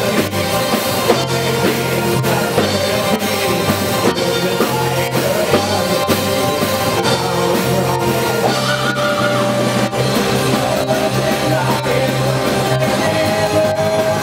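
A rock band playing live: drum kit, electric bass and keyboards, with a sung vocal over them.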